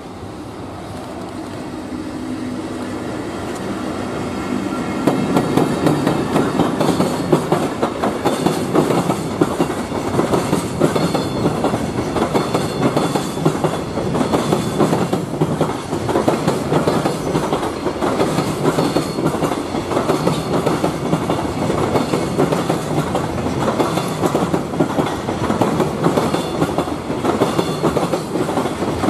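Freight train of Koki container flat wagons hauled by a JR Freight EF65 electric locomotive passing close by. The sound builds up over the first few seconds as the locomotive comes past, then holds as a steady clickety-clack of wagon wheels over the rail joints.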